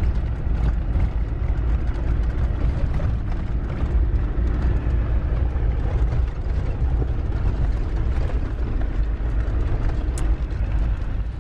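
Land Rover Defender driving over a stony desert track, heard from inside the cabin: a steady low engine and road rumble with constant rattling from the body and load. There is a sharp click near the end.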